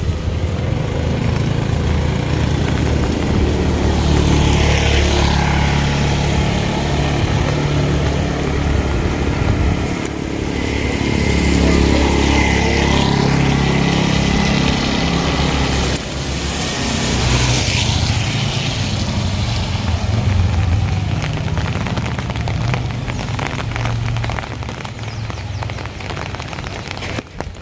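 Motor vehicles driving past close by, engine rumble with tyre hiss swelling and fading as three of them pass in turn.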